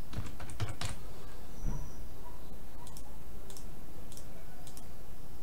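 Computer keyboard typing and mouse clicks: a quick run of light clicks in the first second, then a few single clicks spaced about half a second apart later on, over a steady low background noise.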